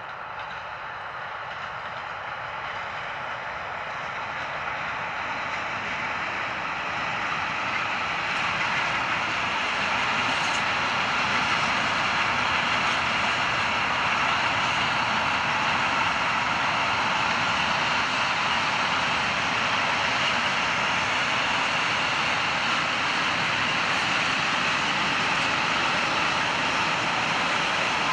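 Freight train of covered wagons behind a Škoda class 44 electric locomotive rolling past on the rails: a steady wheel-on-rail noise that grows louder over the first ten seconds or so, then holds.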